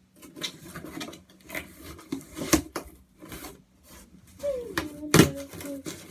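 Cardboard shipping box being pried and torn open by hand: irregular scraping and rubbing of cardboard and tape, with sharp knocks and a brief squeaky scrape near the end.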